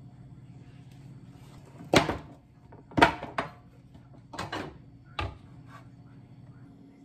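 A digital kitchen scale and a glass food-storage container being set down on a countertop: two sharp knocks about two and three seconds in, then a few lighter clacks and one more knock as the glass container is put on the scale.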